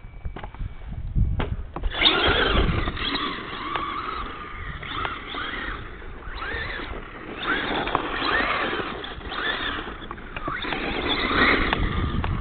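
Radio-controlled truck's motor revving up and down in repeated rising and falling whines as it is driven hard, starting about two seconds in.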